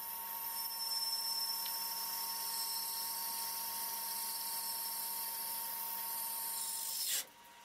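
Large 1¼-inch twist drill cutting into a spinning Delrin (acetal) workpiece under lathe power feed, with a steady high-pitched chatter over the running spindle. It cuts off suddenly about seven seconds in.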